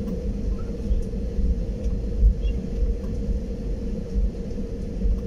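Airliner cabin noise while taxiing: a steady low rumble with a constant droning tone from the jet engines.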